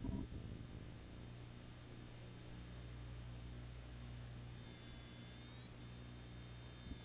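Faint, steady electrical mains hum with a light buzz. A faint high whine dips in pitch about halfway through.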